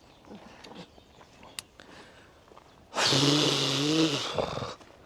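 A person's long, breathy vocal sound, not words, lasting under two seconds and starting about three seconds in.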